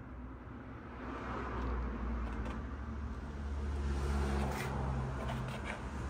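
Harley-Davidson Sportster Iron's V-twin engine, converted to 1200, idling steadily through an S&S 2-into-1 exhaust. It grows louder about a second in.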